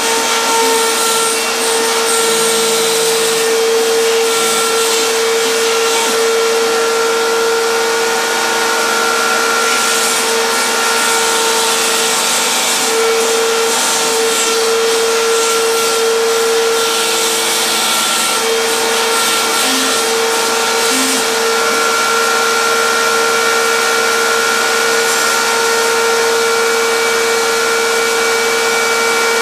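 PhlatPrinter MKII CNC machine running steadily, its spindle whining while it cuts RC airplane parts out of a foam sheet. Lower motor tones come and go as the cutter moves.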